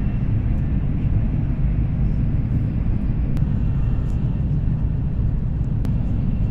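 Passenger-cabin noise of the Whoosh high-speed train running at about 350 km/h: a steady low rumble with an even hiss over it.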